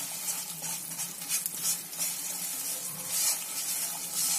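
A silicone spatula stirs and scrapes chopped jaggery around a nonstick pan as it melts in ghee, with the jaggery sizzling.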